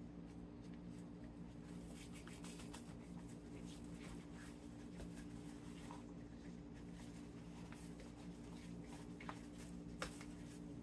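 Faint light scratching and ticking from phyllo dough sheets being handled and brushed with a butter and olive oil mix, over a steady low electrical hum, with a sharper tap about ten seconds in.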